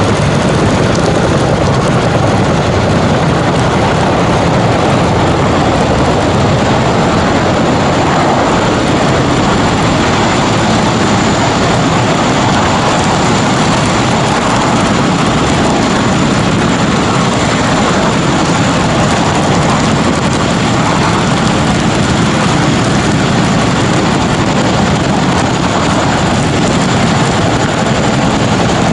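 Military aircraft, most likely helicopters, flying over. Their engine and rotor noise makes a loud, steady rush with a thin high whine running through it.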